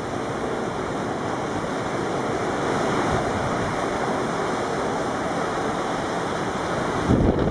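Heavy surf breaking and washing in, a steady rush of whitewater, swelling with a louder low rumble near the end.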